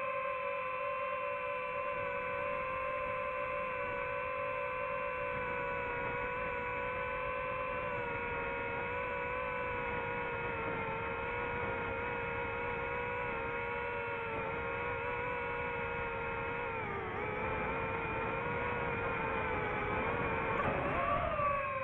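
Quadcopter drone's motors and propellers whining steadily at one pitch. The pitch dips and comes back up twice in the last few seconds as the drone changes its flight.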